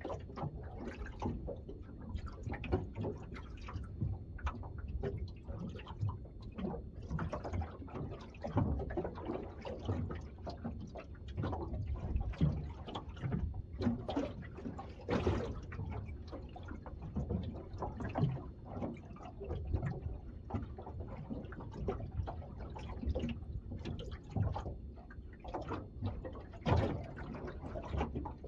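Small waves lapping and slapping irregularly against the hull of a drifting small boat.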